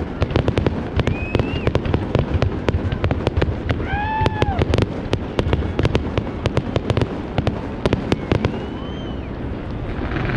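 Aerial fireworks going off in a rapid, dense string of bangs and crackles, with a few short rising-and-falling whistles; the bursts thin out about eight seconds in.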